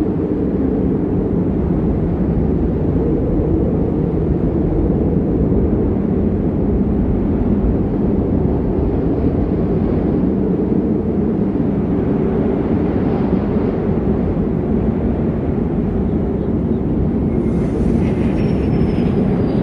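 Steady deep rumbling noise with no pitch or rhythm. A fainter, slowly falling whistle comes in near the end.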